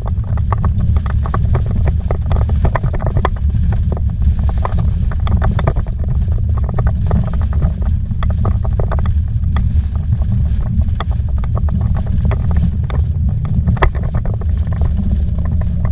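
A vehicle driving fast on a dirt road, heard from inside the cabin: a loud, steady, deep rumble of tyres and running gear, with frequent sharp ticks and knocks scattered irregularly over it.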